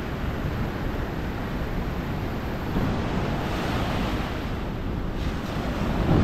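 Ocean surf breaking and washing over the shallows, growing louder and hissier about halfway through as a wave runs in, with wind buffeting the microphone.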